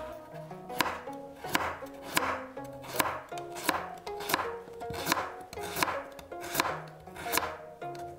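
Chef's knife slicing a carrot into thin planks on a wooden cutting board: a steady run of sharp knocks as each stroke hits the board, about three strokes every two seconds.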